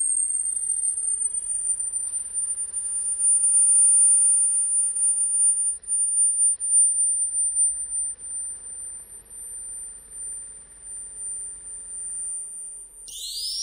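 Amplified high-pitched whine of a camera flash unit charging, held on one steady pitch, with a faint rapid low pulsing underneath. Near the end a new whine sweeps quickly upward.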